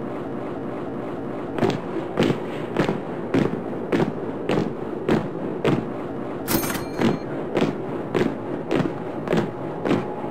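Troops' boots marching in step: a steady series of thuds a little under two a second, starting about one and a half seconds in, over a constant rushing noise. A short hissing burst sounds about six and a half seconds in.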